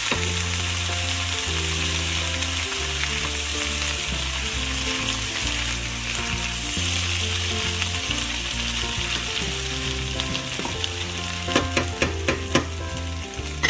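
Onions, green bell peppers and cherry tomatoes sizzling in oil in a nonstick frying pan while a spatula stirs them, with a few sharp taps and scrapes of the spatula on the pan near the end. Soft background music plays underneath.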